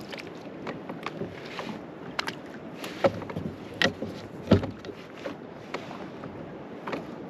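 Irregular knocks and taps over a steady wash of background noise, with three sharper knocks a little past the middle.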